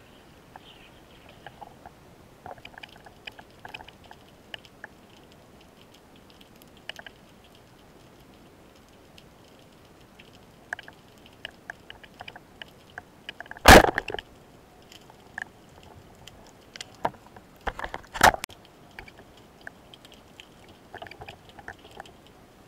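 Underwater: faint scattered clicks and ticks, then one loud sharp thump about 14 seconds in, a band-powered speargun firing. A pair of sharper knocks follows about four seconds later.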